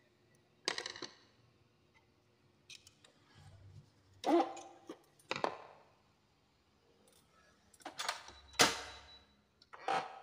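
Sharp clinks and clacks of small metal and plastic printer parts and tools being handled, about six separate knocks, each with a short ring after it.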